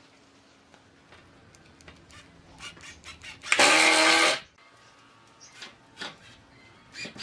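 A power tool runs in one short burst of about a second, a little past the middle, among light knocks and clicks of work on wood.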